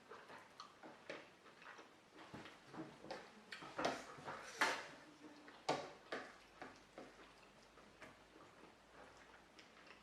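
A person eating close to the microphone: chewing and mouth sounds, a string of irregular small clicks and smacks, with a few louder ones around the middle.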